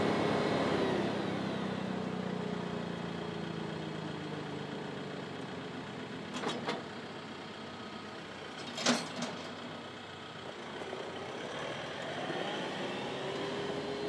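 Diesel engine of a compact TYM tractor running, fading as the tractor moves off, then its pitch rising again over the last few seconds. Two sharp knocks come about six and a half and nine seconds in.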